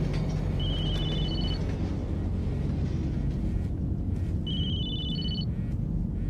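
Mobile phone ringing: a short ringtone of rising beeping notes plays twice, about four seconds apart, over a low steady rumble.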